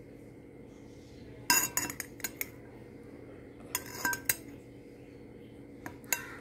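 Metal spoon clinking against a glass of butterfly pea flower tea as the steeped petals are scooped out. There is a quick run of clinks about one and a half seconds in, another about four seconds in, and a couple more near the end.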